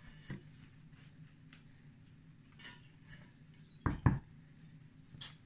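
Quiet kitchen room tone with a few faint handling clicks, then two quick knocks about four seconds in from a spoon and a glass mixing bowl of apple cake batter.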